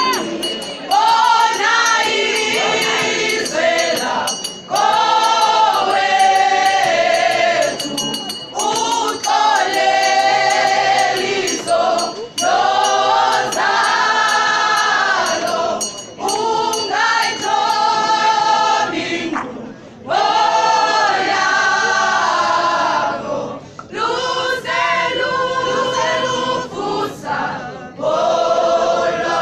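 Secondary-school choir singing together in phrases of a few seconds each, with short breaks between the phrases.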